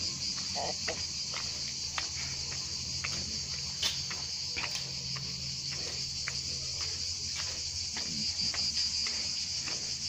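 Cicadas singing in a steady high chorus in the trees, with footsteps on the lane ticking about twice a second.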